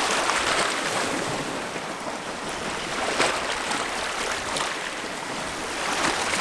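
Small waves washing and splashing against a rocky shoreline: a steady hiss of moving water, with a sharper splash about three seconds in.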